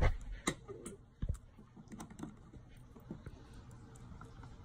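Scattered small clicks and taps from scissors and a toy blaster's cardboard packaging being handled, with a couple of sharper clicks in the first second or so, then fainter ticks.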